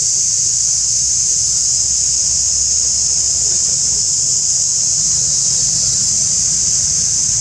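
Loud, steady high-pitched drone of a cicada chorus, without a break, over a low rumble.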